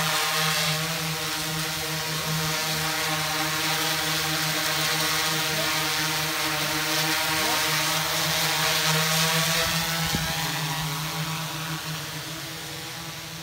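Large multirotor camera drone's propellers droning with a steady pitch while it hovers and flies close by, fading over the last few seconds as it moves away.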